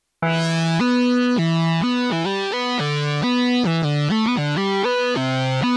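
Synth lead patch on the Arturia SQ80 V software synthesizer playing a melodic line of held notes. It starts about a quarter second in and changes pitch every third to half second.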